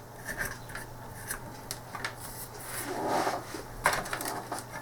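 Plastic joystick parts handled on a workbench: scattered small clicks and knocks with some rubbing, a longer scrape about three seconds in and a sharper click just after.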